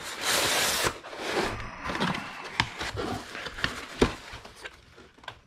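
Cardboard box and styrofoam packing insert being handled: a rough scraping slide of the foam out of the box at the start, then rustling, rubbing and small taps of cardboard flaps, with one sharp knock about four seconds in.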